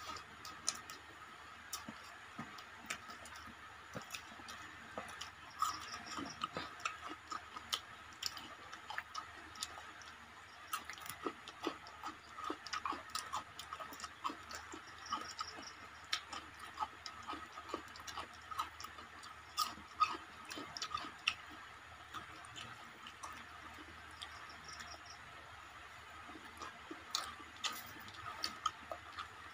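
Eating sounds by hand: many irregular small clicks and smacks from chewing and from fingers working rice, fish and curry, over a faint steady hiss.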